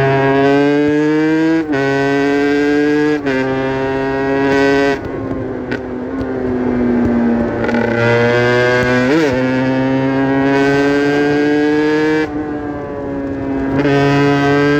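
Aprilia RS 125's 125 cc two-stroke single-cylinder engine under hard acceleration: its pitch climbs and drops sharply at each upshift, three times in quick succession. About a third of the way through it eases off and runs lower and rougher, then pulls up through the revs again, backs off briefly once more near the end, and climbs again.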